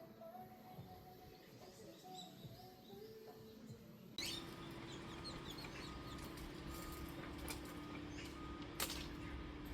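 A faint, quiet stretch with a few soft held notes, then about four seconds in an abrupt change to louder ambience: birds chirping over a steady low hum, with a few clicks.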